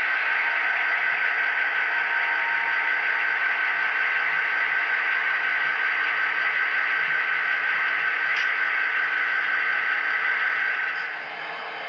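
Model diesel locomotive sound from a model train's small onboard speaker: a steady, hissy drone with a thin steady tone in it. It drops noticeably in level about eleven seconds in.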